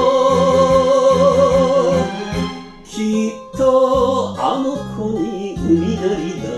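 Enka song with singer and band: a long sung note held with vibrato for about two seconds, then the accompaniment carries on under a moving melody.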